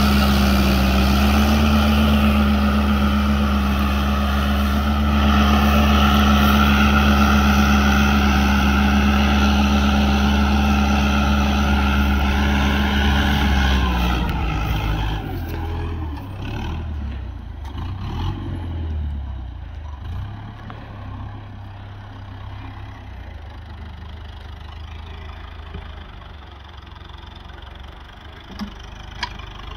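Fiat 640 DT tractor's four-cylinder diesel engine running steadily under load while pulling a reversible plough through the soil. It is loud and close for about the first half, then quieter and more distant from about halfway through.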